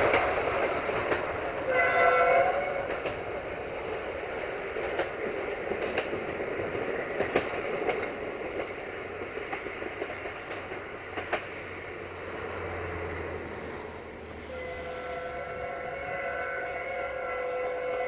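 Horn of the LDH 80-0532-4 diesel-hydraulic locomotive: a short blast about two seconds in, then wheels clicking over rail joints as the train pulls away, then a long held horn chord from about fourteen seconds in.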